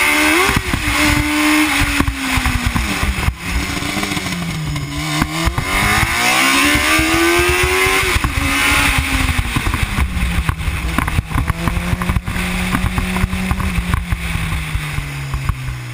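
Racing sidecar outfit's engine at full speed, heard onboard. The engine note drops as it slows, climbs hard again about six seconds in, falls back, then holds fairly steady before dropping once more near the end.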